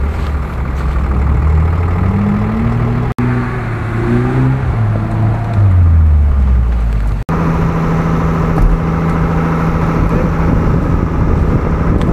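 Off-road 4x4 SUV engine revving as it works through deep mud, the pitch climbing and falling several times. About seven seconds in it cuts sharply to an engine running at a steady, constant pitch with some clatter.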